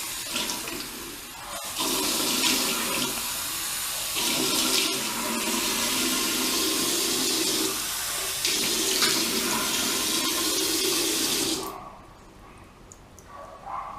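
Tap running into a sink while hands cup and splash warm water onto the face. The water sound comes in fully about two seconds in and stops abruptly about twelve seconds in as the tap is turned off.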